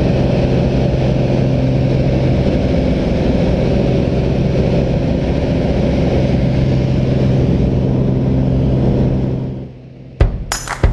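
Light high-wing plane's engine droning steadily inside the cabin as it climbs. Near the end the drone fades out and music with sharp percussive hits begins.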